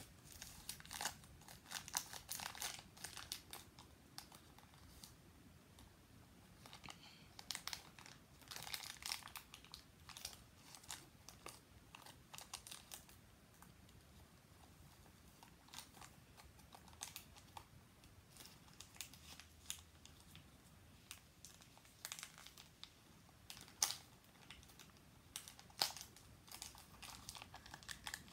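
A small plastic toy wrapper crinkling as it is handled and pulled open, in scattered spells of crackling separated by quieter gaps.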